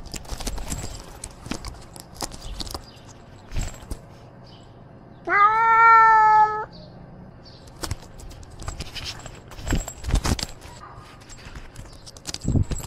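A cat meows once, loud and close-up: a single call of just over a second that rises at the start and then holds level. Around it, scattered scratches and knocks of its claws gripping tree bark as it climbs.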